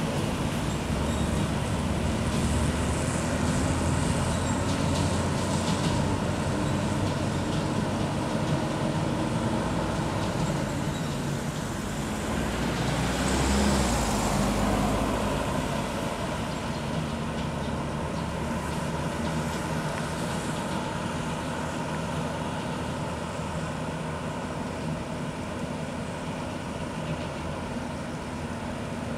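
Heavy-haul trailer truck carrying a subway car, with its escort truck, driving slowly away; steady truck engine and road noise that grows slowly fainter. About halfway through, a vehicle passes close by and briefly swells louder.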